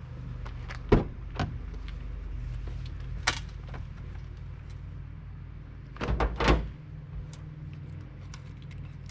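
Pickup truck cab doors being opened, with sharp latch clicks and knocks about a second in and again near 3 seconds, then a louder cluster of clunks about six seconds in as the old magnet-mount amber beacon is pulled off the cab roof, all over a steady low hum.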